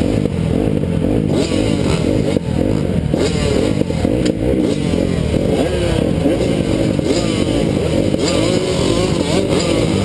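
A row of motocross bikes, a Kawasaki close by among them, running and revving at the starting gate before the start, several engines rising and falling in pitch over one another.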